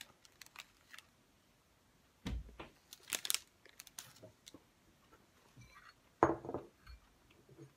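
Scattered handling and eating sounds while someone eats a doughnut: short crinkles, taps and clicks in a few bursts about two, three and six seconds in, with quiet gaps between.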